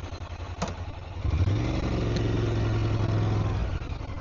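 Motorcycle engine running, getting louder about a second in and then holding a steady note, with a single sharp click shortly before.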